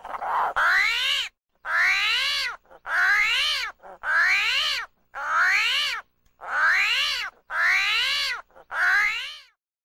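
Domestic cat meowing over and over, about eight or nine loud meows in a row at roughly one a second, each rising and then falling in pitch.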